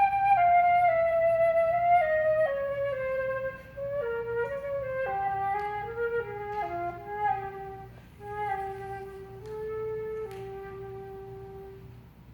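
Solo flute playing a slow melody that steps downward from the upper register into the low register, then holds long low notes and fades away near the end.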